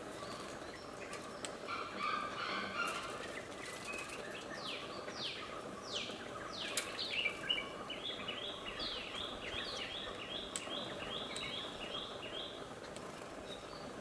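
Wild songbird calling over a steady outdoor hiss: scattered chirps at first, then a few quick sharply falling whistles about halfway, followed by a regular run of short repeated notes, about three a second.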